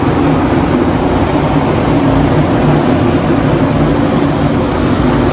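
Compressed-air spray gun hissing as it lays clear coat on a car bumper, over the steady running of the paint booth's air system. The hiss briefly cuts twice near the end.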